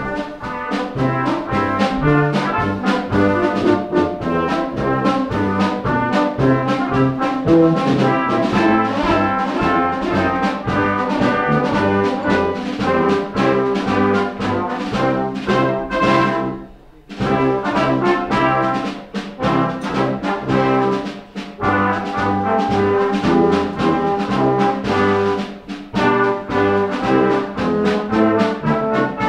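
Military reservist wind band playing, brass to the fore with trombones and trumpets, in a steady beat; the music breaks off briefly a little past halfway and starts again.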